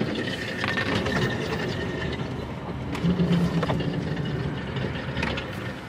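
Steady vehicle noise heard inside a car's cabin, with a few light clicks and knocks.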